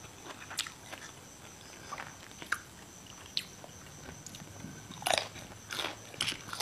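Close-miked eating: a person chewing and biting food, with small crunches and mouth clicks, a few louder crunchy bites near the end.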